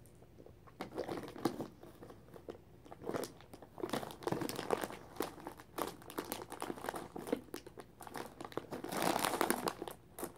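Plastic candy wrapper crinkling and crackling as it is handled and pulled open. It starts about a second in and is densest near the end.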